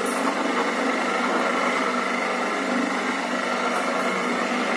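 Porridge mixer's 1/4 HP single-phase electric motor and worm gearbox running steadily, turning a stainless steel paddle through thick rice-flour porridge: an even hum with a higher whine.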